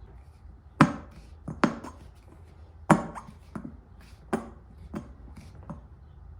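A series of about eight sharp knocks and clanks of hard objects at irregular intervals, the loudest about a second in and another near three seconds in, over a low steady background hum.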